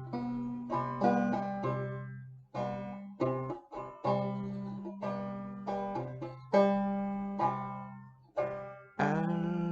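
Banjo being plucked slowly: single notes and chords, about one or two a second, each struck sharply and then left to ring and fade.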